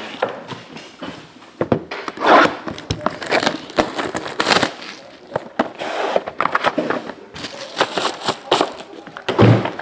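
Plastic and foil card packaging being crinkled and torn open by hand, in a string of irregular rustling, crackling bursts.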